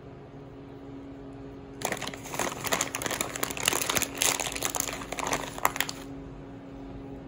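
Plastic bag of shredded mozzarella crinkling for about four seconds as a hand rummages in it and pulls out cheese, starting about two seconds in, over a steady faint low hum.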